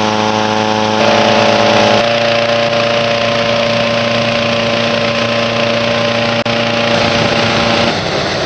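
Small petrol engine of a hot-air balloon inflator fan running steadily at speed, blowing air into the envelope for cold inflation. Its hum shifts in pitch about one second and again about two seconds in.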